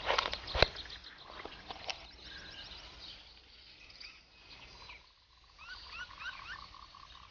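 Clatter and a sharp knock in the first second, then strings of short, quick rising chirps from animal calls, a second run of them near the end.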